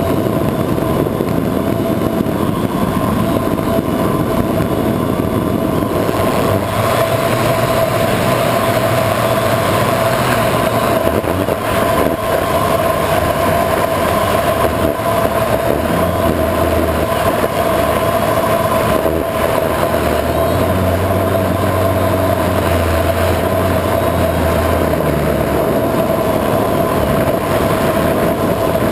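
Multirotor drone's electric motors and propellers humming steadily in flight, heard from the onboard camera, with rushing air noise over the microphone.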